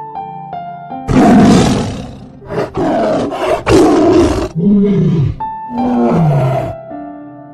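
A large animal roaring: two long harsh roars, then two shorter calls that fall in pitch, over soft background music.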